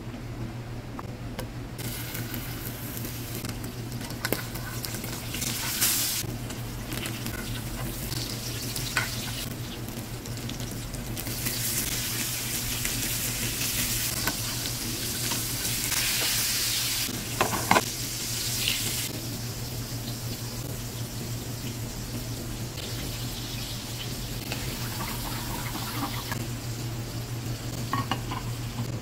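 Salmon fillet, asparagus and cherry tomatoes sizzling in olive oil in a nonstick frying pan. The sizzle starts about two seconds in and is loudest around the middle, with a few clinks of utensils against the pan. Near the end a balsamic vinegar sauce bubbles in the pan, over a steady low hum.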